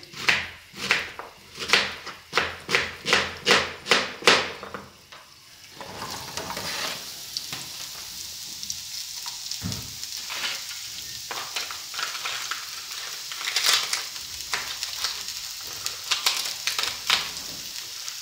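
A kitchen knife cuts onion on a plastic cutting board in quick strokes, about three a second, for the first few seconds. About six seconds in, the onion goes into the hot oil and garlic in the frying pan and starts a steady sizzle. Occasional knocks sound over the sizzle.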